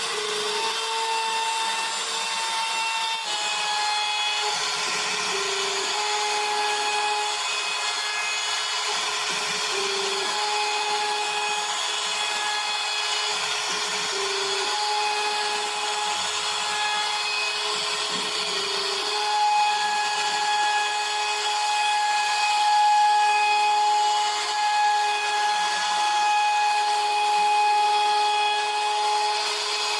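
CNC router spindle running steadily as the bit carves into wood: a constant high whine over a cutting hiss, its pitch dipping briefly every few seconds as the cut loads the spindle.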